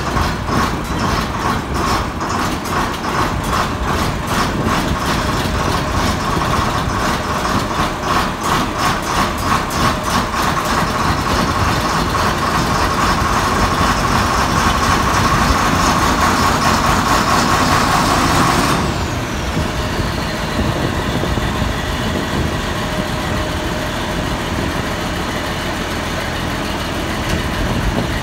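John Deere 4850's turbocharged six-cylinder diesel running just after a cold start at about freezing, pulsing unevenly for the first ten seconds or so, then steadier. About two-thirds of the way through the sound drops suddenly and a high whine falls away, leaving a quieter steady engine sound.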